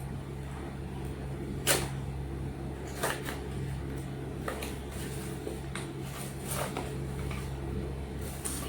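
Scattered sharp clicks and rustles of a toy's cardboard and plastic packaging being handled and opened, about five in all, over a steady low hum.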